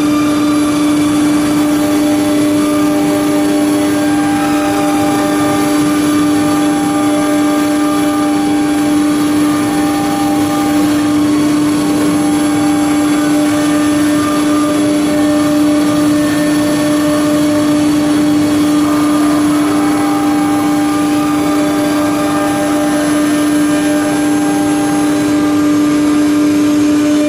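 CNC wood router's spindle milling a wood panel: a loud, steady spindle whine over the noise of the cut. A second, higher tone comes in twice, for several seconds each time.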